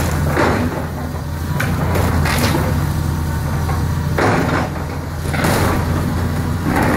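Hitachi tracked excavator's diesel engine running steadily while its bucket tears into a wood-frame house, with a crash of breaking timber and falling debris every second or two.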